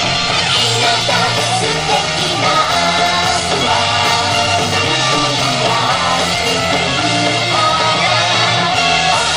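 Upbeat pop song with a sung vocal line and a steady band backing, playing at a steady level.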